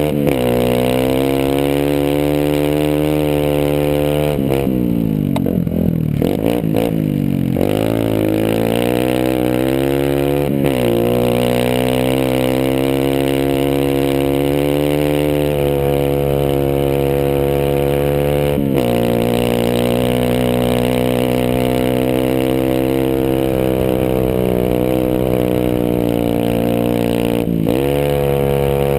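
Honda CRF150F dirt bike's four-stroke single-cylinder engine running hard at high revs, held in a low gear because an upshift would bog it down on the rough track. About five seconds in the revs drop and waver for a couple of seconds before climbing back. Later they dip briefly and rise again three more times.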